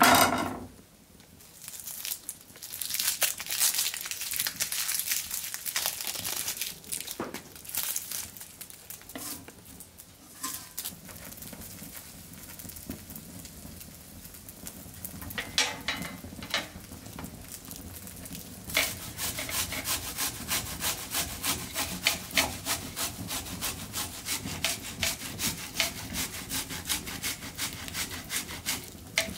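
A shallot being grated on a flat metal grater: rasping strokes in a steady rhythm of about three a second, settling in around the last third. A sharp knock at the very start.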